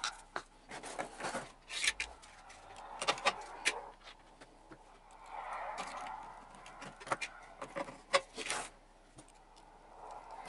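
Small metal tools and parts clicking and tapping on a tabletop while an RC model plane's wheels are removed and a small screwdriver works at the landing-gear wire: scattered sharp clicks at irregular intervals.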